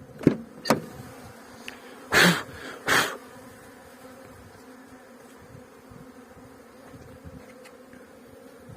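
Honeybees buzzing steadily around open hives, with two sharp knocks in the first second and two louder, short rushing noises about two and three seconds in.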